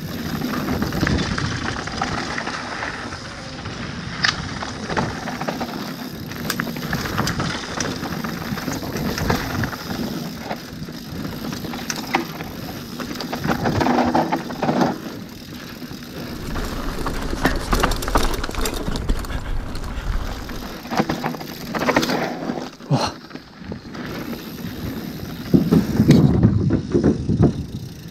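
Mountain bike riding fast down a rough dirt trail: tyres rumbling over dirt and stones, with frequent rattles and knocks from the bike over bumps. The loudest rumble comes near the end as the tyres roll onto a wooden bridge deck.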